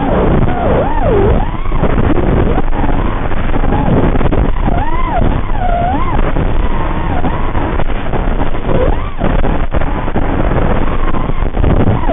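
FPV racing quadcopter's brushless motors spinning Gemfan Hurricane props: a whine that swoops up and down in pitch as the throttle changes, over heavy wind rush on the onboard microphone.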